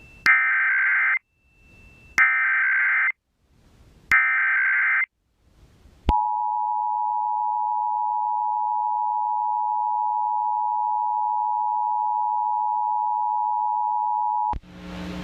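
Emergency Alert System Required Monthly Test tones on a radio broadcast. Three short bursts of SAME header data tones come about two seconds apart. About six seconds in, the two-tone attention signal starts and holds steady for about eight seconds before cutting off.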